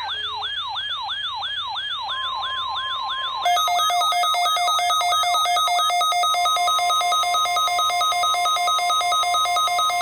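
Electronic emergency-alert tones: a fast yelping siren sweeps up and down about three times a second, and a steady beep near 1 kHz comes in about two seconds in. A second and a half later a louder, buzzy two-tone beep joins, pulsing about four times a second, while the siren fades away.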